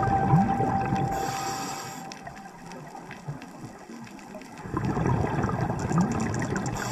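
A scuba diver breathing underwater, picked up by the camera: a short hiss of breathing in through the regulator, a pause, then the rumbling, bubbling rush of exhaled air from about five seconds in.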